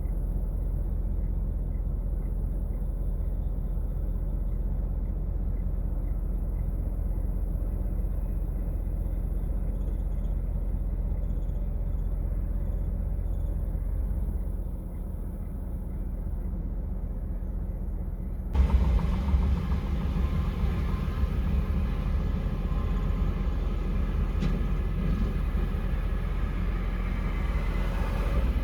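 Steady low rumble of vehicles. About two-thirds of the way through it abruptly becomes louder and brighter, with more hiss in the upper range.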